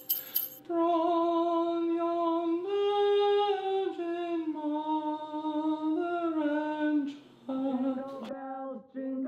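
A woman's voice singing a slow wordless tune in long held notes that step and slide in pitch, dropping lower and breaking off briefly in the second half.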